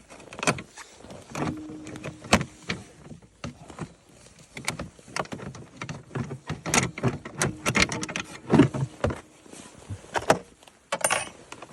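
Irregular metallic clicks and knocks from working on a no-start engine while its crank is turned over by hand, with a faint steady hum in two stretches.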